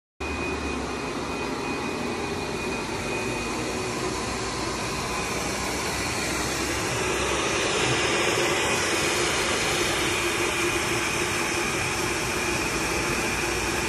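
Semi-automatic filter bag body welding machine running while it seals the seam of filter felt: a steady blowing hiss with a faint steady whine, growing slightly louder about halfway through.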